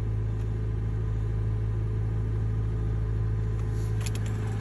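2013 Honda Civic's four-cylinder engine idling steadily, heard from inside the car; it is running again now that the blown battery fuse behind the no-crank, no-start fault has been replaced. A few faint clicks near the end.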